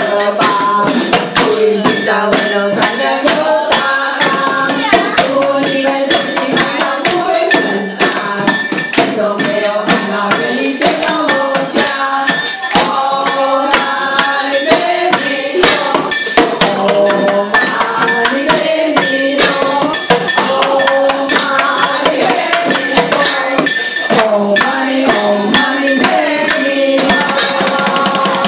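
An upbeat song with a moving melody, carried by a group singing and by fast, dense percussion struck on improvised instruments such as upturned plastic buckets and scrub brushes.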